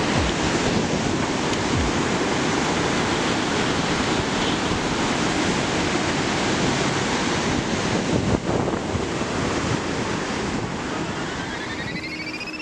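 Augrabies Falls on the Orange River: a steady, loud rush of falling water, with wind buffeting the microphone. Near the end a rising tone comes in.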